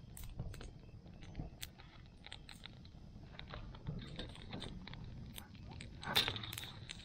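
Wood fire crackling and popping in a metal fire grate: scattered sharp snaps all through, with one louder knock or bang about six seconds in.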